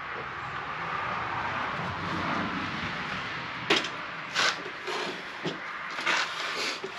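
Metal clanks and knocks from work on a steel mower deck: an even hiss, then about five sharp knocks in the last three seconds.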